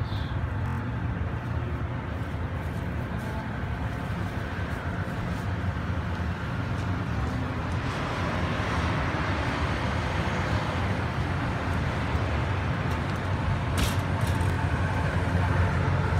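Street traffic: cars running on a town street, a steady low rumble with car noise swelling about halfway through, and a brief click near the end.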